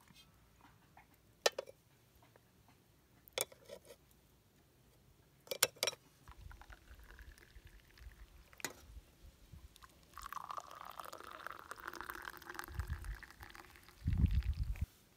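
A few sharp clinks of dishes and utensils, then liquid pouring into a kitchen vessel for about five seconds near the end, with a low thud or two as it finishes.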